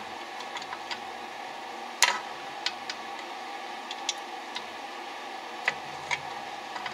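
Scattered light metallic clicks and taps from a carburetor and its air intake box being handled and fitted by hand, with a sharper click about two seconds in. A steady hum runs underneath.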